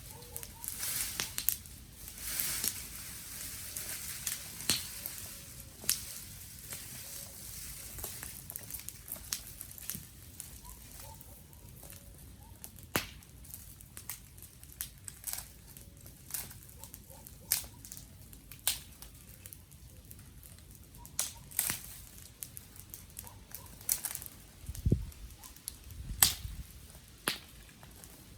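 Wood fire crackling, with irregular sharp pops and snaps of burning sticks over a soft hiss. A dull low thump comes near the end.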